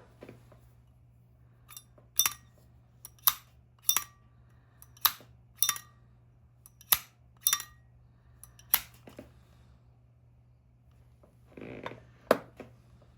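Zippo lighter lids snapped open and shut one after another: a run of sharp metallic clicks with a short ring, about nine in quick succession, then a pause and one more click near the end.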